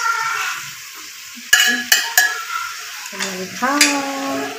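A spoon stirring pork and greens sizzling in an aluminium pressure-cooker pot, with a few sharp clinks of the spoon against the pot about a second and a half to two seconds in. A voice is heard briefly near the end.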